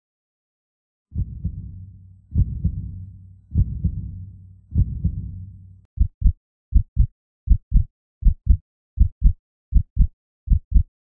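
Four deep, low booming thuds about a second apart, each fading out slowly. About six seconds in, a steady double-beat heartbeat sound effect takes over, a little faster than one beat a second.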